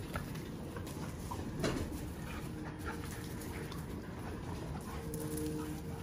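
Puppies playing, with a short dog whimper about a second and a half in, over steady background noise from summer cicadas singing.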